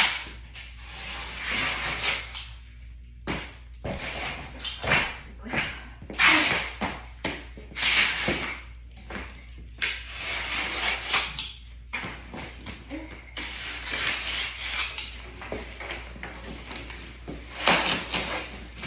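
Cardboard furniture box being broken down by hand: irregular bursts of cardboard scraping, creasing and tearing, some sharp and some drawn out over a second or so.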